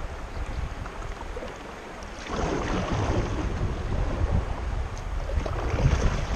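River water washing and splashing along a kayak's hull, swelling twice, over a steady rumble of wind on the microphone.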